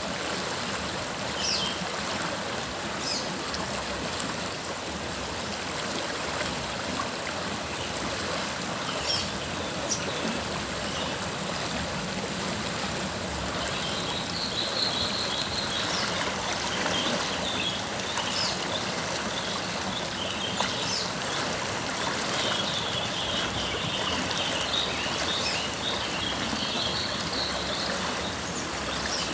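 A river flowing steadily, a constant rushing, babbling water sound. Scattered short high chirps sound over it.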